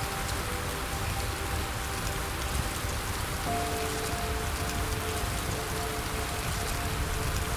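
Steady rain falling on a surface, with soft sustained music chords underneath that change about three and a half seconds in.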